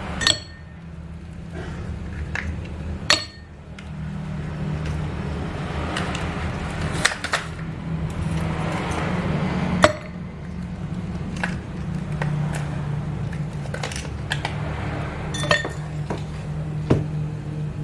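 Ice cubes and glassware clinking: a dozen or so sharp separate clinks spread out over a steady low hum.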